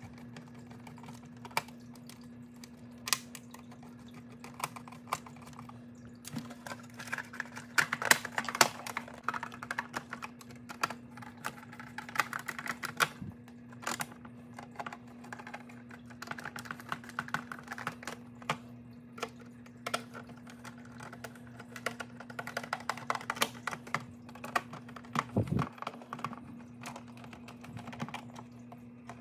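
Hand screwdriver driving screws into the plastic body of a Big Mouth Billy Bass singing fish, with clicks and knocks from the plastic back shell being handled and fitted. Irregular runs of small sharp clicks come in spells, over a steady low hum.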